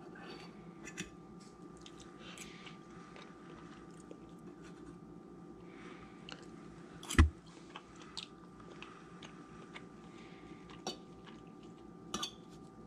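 A metal fork clicking and scraping on a ceramic plate while flaking cooked trout off the bone, with quiet chewing between the clinks. One sharp clink a little past halfway is the loudest sound, over a faint steady hum.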